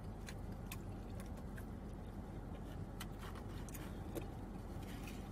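Quiet chewing with scattered small clicks of a plastic fork in a foam takeout container, over the steady low hum of the car's cabin.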